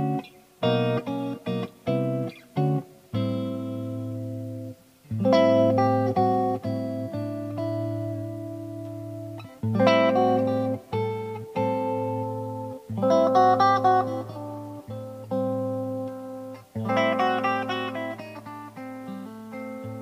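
1982 made-in-Japan Tokai Silver Star electric guitar played with a clean tone: a run of short, cut-off chord stabs in the first few seconds, then full chords strummed and left to ring and fade, a new one every three to four seconds.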